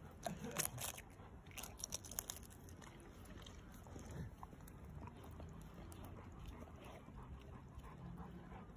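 Akita puppy biting into a hen's egg: the shell cracks and crunches in a quick run of sharp clicks over the first couple of seconds, then quieter mouthing of the broken shell.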